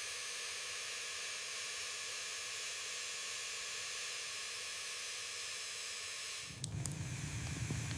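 A steady, even hiss with no low end; about six and a half seconds in it gives way to a lower rumble with scattered small clicks.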